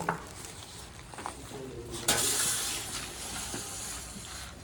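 A hiss that starts suddenly about two seconds in and slowly fades.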